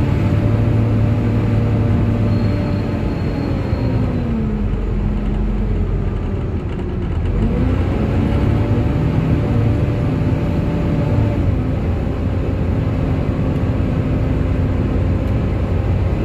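Volvo B7TL double-decker bus running, its diesel engine rumbling under the steady whine of the engine cooling fan. The tones slide down about four seconds in, bottom out briefly, and climb back again about seven and a half seconds in before holding steady.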